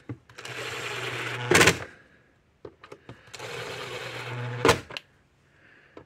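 Cordless drill/driver driving screws into the plastic case of a solar fence energizer: two runs of the motor, each about a second and a half long and each ending in a sharp click.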